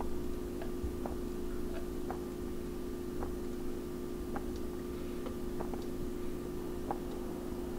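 A steady low electrical hum, with faint, irregular light ticks about once or twice a second.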